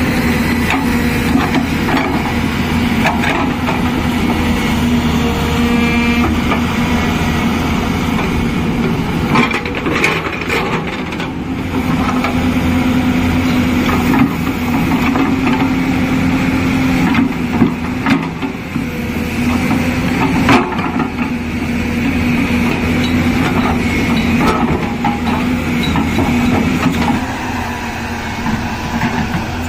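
Hyundai 220LC-7 hydraulic excavator's diesel engine running under load with a steady hum, while its bucket scrapes and crunches through soil and stones, with a few sharp knocks.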